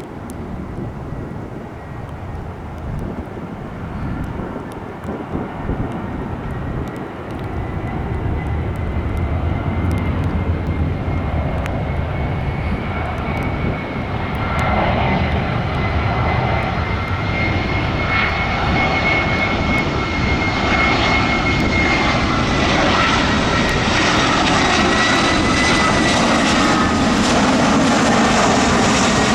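Jet airliner engines: a steady rumble with a high, slightly wavering whine on top, growing gradually louder as the aircraft comes closer.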